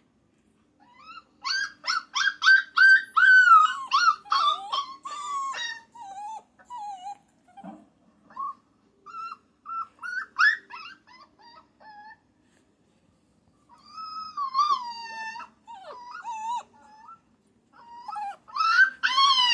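Puppy howling and whining: a fast run of high yips about two seconds in, then scattered short whimpers, a longer wavering howl later on, and another burst of yips near the end.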